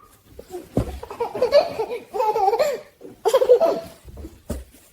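A baby laughing in two bouts of giggles, with a sharp knock about a second in and another near the end.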